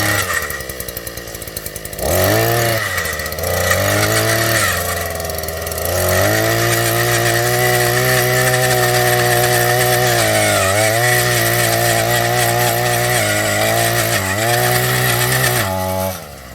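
Small petrol engine of a hand-held power tool, running at high revs. It revs up about two seconds in, dips briefly in pitch and picks up again several times, and drops off just before the end.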